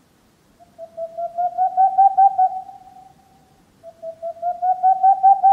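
Tengmalm's (boreal) owl song: two phrases of rapid hooting notes, about five a second, each phrase rising in pitch and getting louder over about two seconds.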